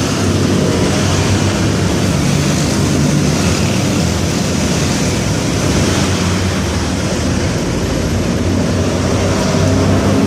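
Water rushing steadily over a low, steady engine hum.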